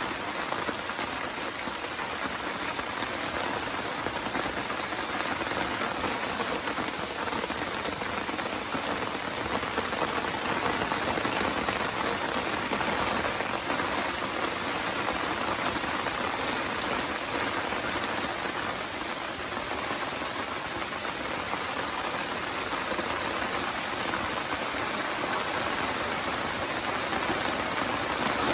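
Steady rain falling: a dense, even hiss of many small drops striking a surface.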